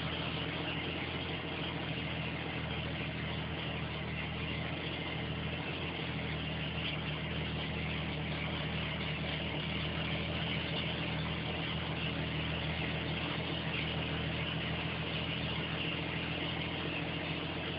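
Jeep engine idling steadily at an even, unchanging speed.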